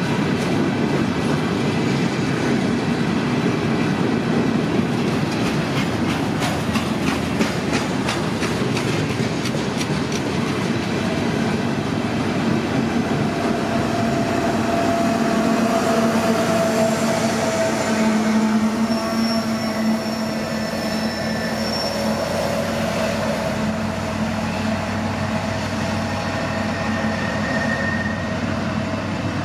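A heavy freight train of loaded steel-coil cars rolling past close by, its wheels clacking rapidly over the rail joints. Toward the middle a rear-end diesel locomotive passes with a steady engine hum. The sound then fades to a rumble as the train moves away, with thin high wheel squeals.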